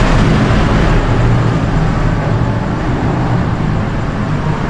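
Jakarta MRT Ratangga metro train running: a steady rumble with a low hum underneath.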